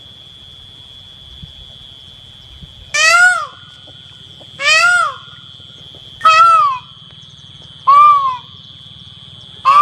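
Peacock calling: a run of loud, short, arching calls, one about every second and a half, beginning about three seconds in.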